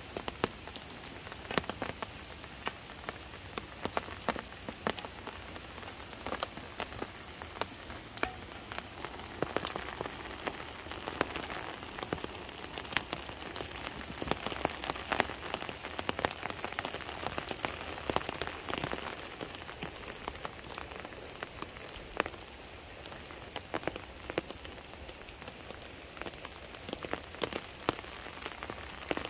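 Light, steady rain falling on leaves and grass, with many separate drops tapping throughout.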